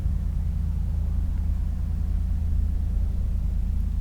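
Steady low hum or rumble, with no other event standing out.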